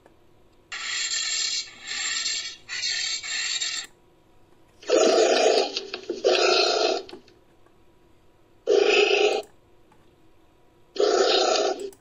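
Made-up creature sound effects for a northern tamandua, built from real anteater recordings. Three raspy, hissing bursts come first, then four louder short calls with a fuller, deeper body, each under a second long and separated by short silences.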